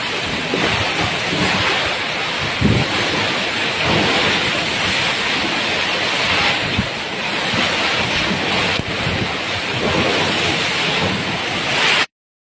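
Typhoon wind and driving rain: a steady rushing noise with gusts buffeting the microphone, cutting off suddenly near the end.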